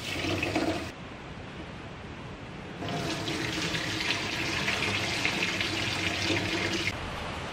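Rice being washed in a pot at a stainless steel kitchen sink: a short splash of water at the start, then the cloudy rinse water poured off through the fingers, splashing into the steel sink for about four seconds and stopping shortly before the end.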